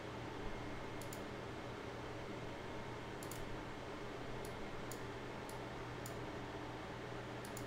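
A few faint, sharp clicks, scattered irregularly about seven times, over a steady low room hum.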